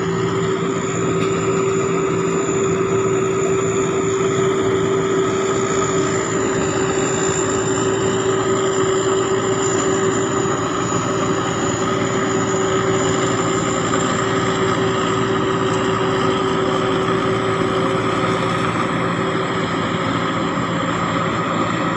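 Sakpattana SS-300 combine harvester running steadily at work, its turbocharged engine under load with a high, thin turbo whine over the steady engine drone.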